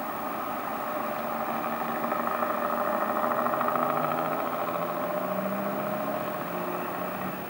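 Diesel engines of a first-generation diesel multiple unit working hard under power, putting out dark exhaust smoke. The steady engine note swells to its loudest midway and then fades as the train draws away, its pitch rising a little in the second half.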